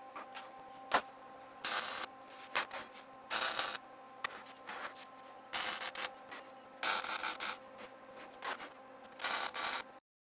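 MIG welder laying short tack welds on steel: about five brief crackling bursts, each around half a second, with a sharp click about a second in, over a faint steady hum.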